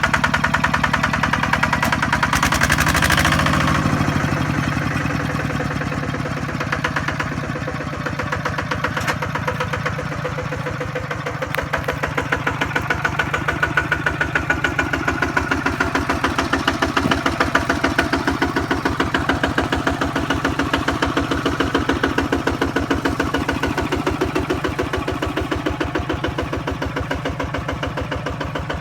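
Kubota RT155 single-cylinder diesel engine of a farm truck running with a steady, fast, even thumping.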